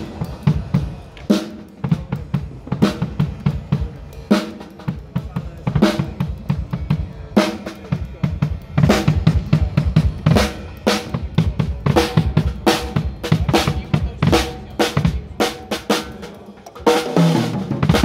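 DW drum kit played: quick bass-drum strokes under snare hits and cymbals, with strong accents about every second and a half at first and busier playing from about halfway through.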